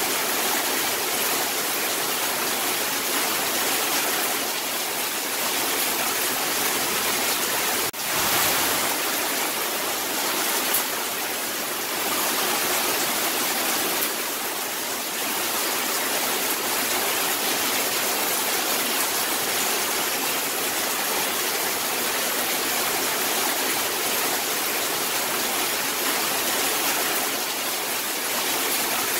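Rain falling steadily, an even hiss without let-up, with one brief click and dip about eight seconds in.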